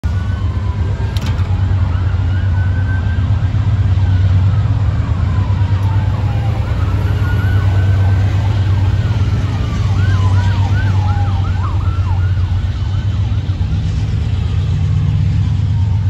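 Emergency vehicle siren sounding a slow rising-and-falling wail, switching to a fast yelp for a couple of seconds around the middle, over a steady low engine rumble.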